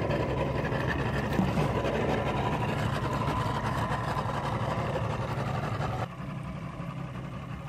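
Boat engine idling steadily, a low even hum with water and wind noise over it; about six seconds in it drops suddenly to a quieter level.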